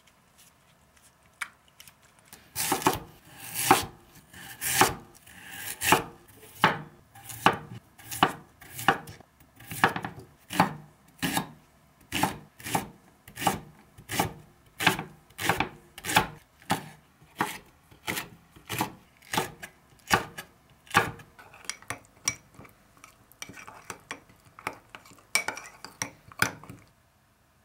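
Chef's knife slicing a green onion on a wooden cutting board, a steady knock about twice a second. Near the end, a spoon stirring and scraping thick chili sauce in a ceramic cup.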